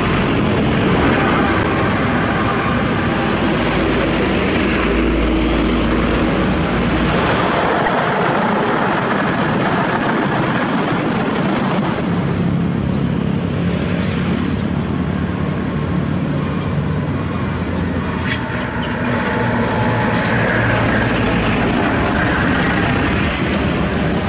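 Heavy diesel trucks hauling excavators drive past on a road, with motorbike traffic. There is a steady engine and tyre noise, deepest in the first several seconds as a loaded Hino 500 self-loader truck goes by close.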